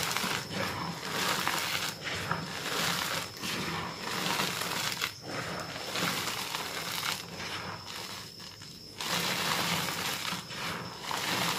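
Re-formed gym chalk clumps crunching and crumbling as bare hands squeeze and break them in loose chalk powder, a dense gritty crackle that eases off briefly about eight seconds in before picking up again.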